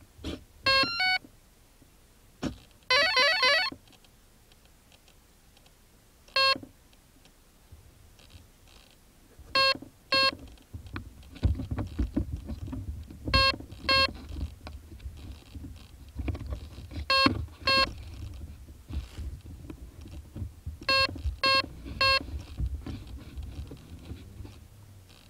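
T-Rex 550 electric RC helicopter's speed controller beeping through the motor on power-up: a quick triple beep, a rising startup tune, then short groups of one to three beeps every few seconds. Between the beeps there is a low rumble.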